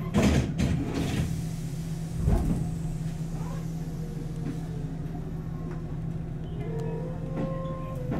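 Tobu 8000-series electric train pulling away: a steady low hum with a couple of thumps in the first few seconds, then a motor whine that rises slowly in pitch as the train gathers speed.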